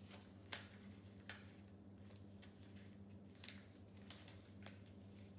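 Faint rustling and creasing of a sheet of paper being folded by hand into a paper airplane, with a few brief crinkles, over a steady low hum.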